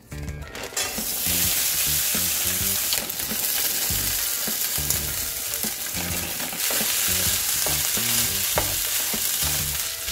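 Fried rice sizzling in a hot, oiled nonstick frying pan: the sizzle starts about a second in as the rice hits the pan and holds steady. Near the end a plastic spoon scrapes and knocks as it stirs the rice around the pan.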